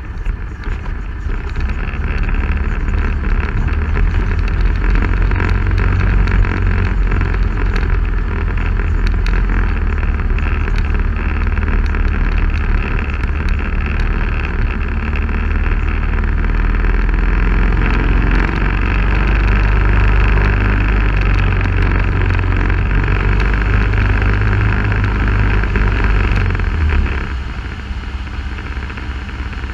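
Off-road vehicle driving along a rough dirt trail: steady engine running under the rumble of the ride over rocks and sand. It grows louder a couple of seconds in and drops back for a moment near the end.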